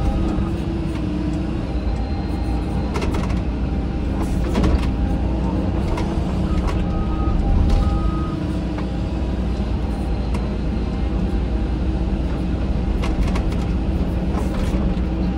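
Caterpillar 313 hydraulic excavator running steadily under work, its diesel engine and hydraulics heard from the cab, with a few sharp knocks from the bucket and arm.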